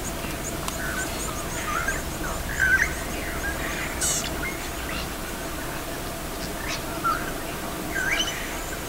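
Bush ambience of birds calling in short scattered chirps, over a steady low hum and faint quick high-pitched ticking.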